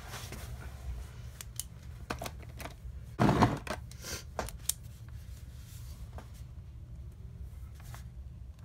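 Pens and markers being handled and swapped: scattered light clicks, with a louder clatter about three seconds in followed by a few more clicks. A steady low hum sits underneath.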